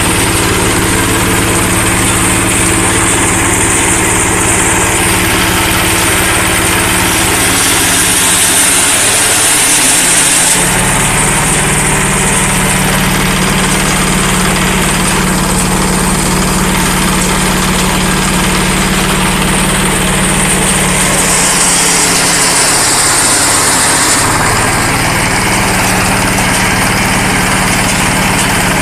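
Single-cylinder diesel engine driving a hemp decorticator, running steadily. About eight seconds in, and again about twenty-two seconds in, the low drone dips for a few seconds and a harsher high hiss rises.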